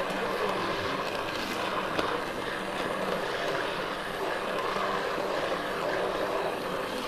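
Immersion blender running steadily with its blade head submerged in a pot of butternut squash soup, churning and puréeing the cooked squash.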